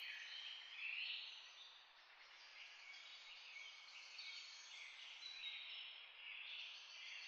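Near silence: faint, irregular high chirping of outdoor background ambience.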